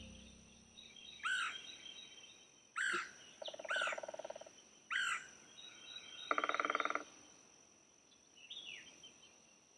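Quiet woodland birdsong: a short arching chirp repeated about five times, and two brief buzzy trills, one near the middle and one later, over a faint steady high insect hum.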